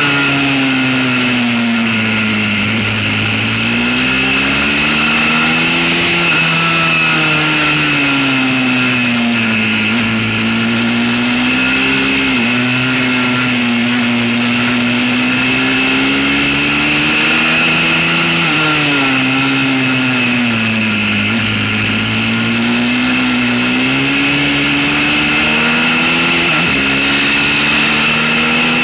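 Pit bike's small single-cylinder engine, heard on board, running hard at speed; its pitch falls and rises again several times with the throttle through the corners.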